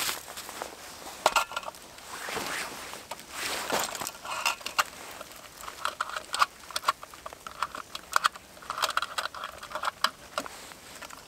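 A hand brushing and crunching through snow on a tree stump, then a metal lantern set down on the stump and handled: scattered clicks, light knocks and jingles of its wire handle, and scraping as its base is twisted.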